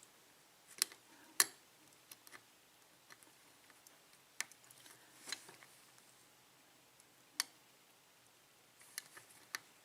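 Small, irregular metallic clicks and ticks of a slender Peterson Gem pick working the pin stack inside a pin-tumbler lock cylinder, lifting pins under tension while single-pin picking. There are about ten separate clicks, the sharpest about a second and a half in.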